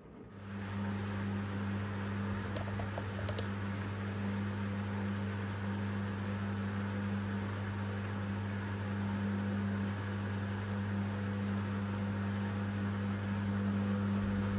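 Candy GrandO Vita Smart Fi+ washing machine. A steady electric hum with a rush of water starts about half a second in and holds even, with a few faint ticks a few seconds in. This is the sound of its pump or water valve working during the cycle.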